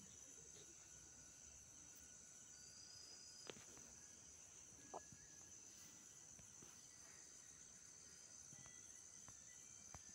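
Near silence: a faint, steady, high-pitched chirring in the background, with two faint clicks about a second and a half apart.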